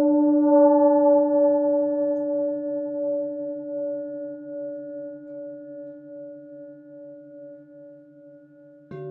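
Crystal singing bowls ringing with long, pure sustained tones that slowly fade, over a faint pulsing hum. Near the end another bowl is struck and a new, higher tone starts ringing.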